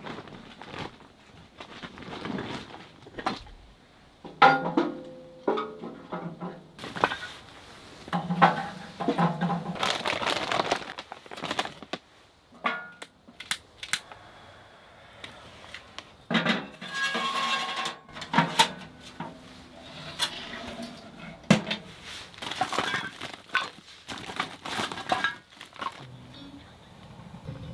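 Background music, with intermittent knocks and clatter of gear being handled.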